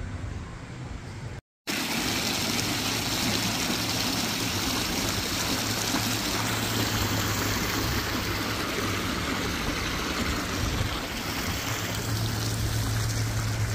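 Water feature running: jets bubbling and splashing steadily in a shallow pool at the foot of a tiled wall, with a steady low hum underneath. It starts suddenly after a short break about a second and a half in.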